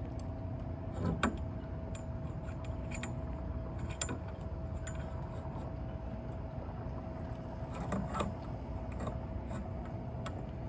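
A few light metallic clicks and taps as a stainless steel fender basket and its U-bolt hardware are fitted by hand to a boat's bow rail, over a steady low hum with a faint constant tone.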